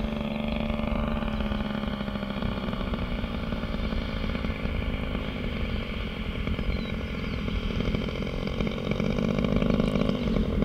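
Desert Aircraft DA-150 twin-cylinder two-stroke gas engine of a 46% scale RC biplane running steadily as the plane comes in on its landing approach. It grows louder over the last couple of seconds.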